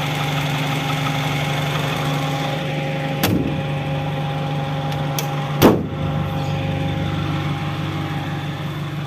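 A 1994 Suzuki Katana GX's four-cylinder petrol engine idling steadily and smoothly. Two sharp knocks come about three and five and a half seconds in, the second the louder.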